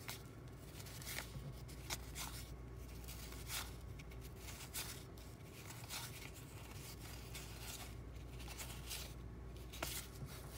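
Faint scuffs and soft flicks of cardboard 1987 Topps baseball cards being slid one at a time through a hand-held stack, a small stroke about every second.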